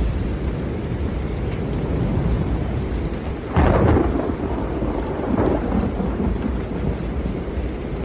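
Strong stormy wind blowing with a steady low rumble. A sudden loud crash comes about three and a half seconds in, and a smaller one follows near five and a half seconds.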